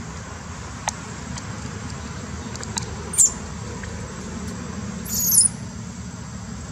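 Newborn macaque squeaking at a high pitch: one short squeak about three seconds in, then a longer squeal about five seconds in.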